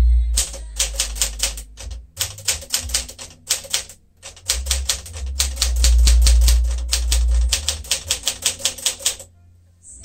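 A 1959 Smith-Corona Sterling manual portable typewriter being typed on: fast runs of type-bar strikes, about five a second, with short breaks about two and four seconds in. The typing stops shortly before the end.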